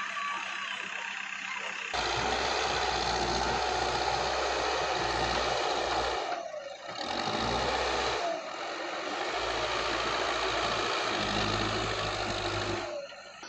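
Heavy diesel engine running, getting much louder about two seconds in and dipping briefly a few times.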